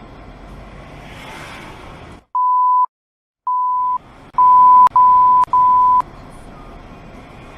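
Five short electronic beeps of one steady pitch, the last three almost back to back, with dead silence between the first ones: censor bleeps edited over swearing. Before them, steady road and traffic noise.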